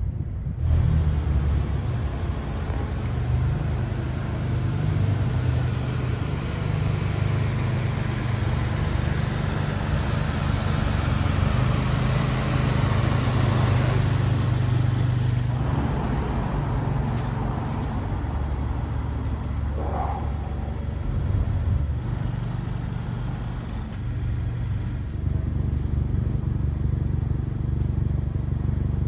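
2020 Honda Civic Si's turbocharged 1.5-litre four-cylinder idling steadily through an aftermarket cat-back exhaust, with a deep, even exhaust rumble.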